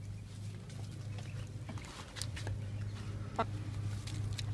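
Poultry calling: a few short clucks and peeps scattered through, one slightly louder brief call about three and a half seconds in, over a steady low hum.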